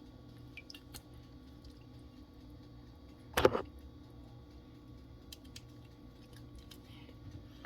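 Raw chicken wings being trimmed by hand: faint small cutting and handling clicks, with one louder sharp knock about three and a half seconds in.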